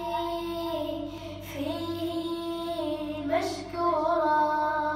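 A boy chanting an Arabic supplication (du'a) into a microphone, drawing each word out in long melodic held notes.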